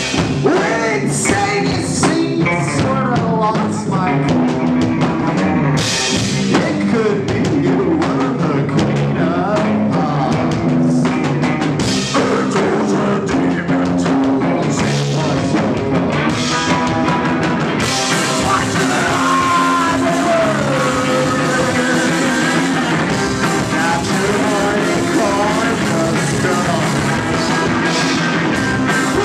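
Live rock band playing a song: drum kit, guitar and a singing voice. The sound grows fuller and brighter about eighteen seconds in.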